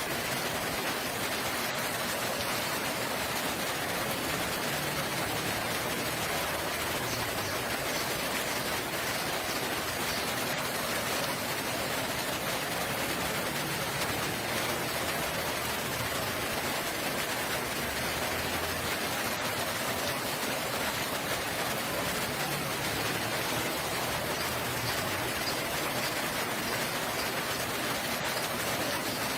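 Steady rain falling, a constant even hiss of drops on surfaces with no pauses or changes.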